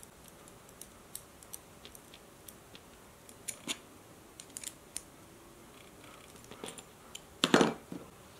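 Scattered light clicks and ticks of a flathead screwdriver turning a Chicago screw to join a BioThane strip, with a louder knock near the end.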